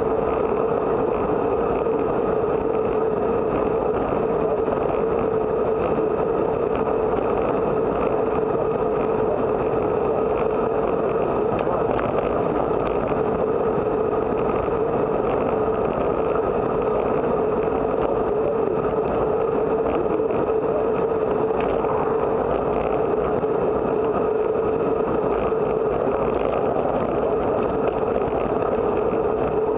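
Steady rush of wind and tyre noise from a bicycle rolling along an asphalt road, picked up by a bike-mounted camera, with a constant drone that holds the same level throughout.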